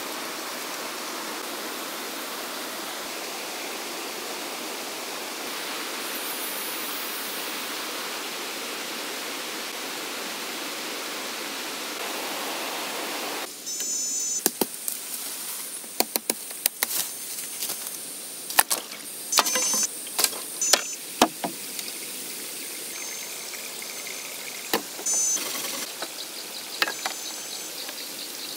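A steady rush of flowing water for about the first half. It then cuts to a string of sharp knocks and cracks of wood and bamboo being handled, with a few short high chirps.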